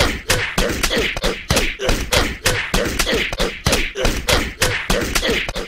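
A snippet of an angry, snarling cartoon voice chopped and looped rapidly, about six repeats a second, as a choppy stutter edit.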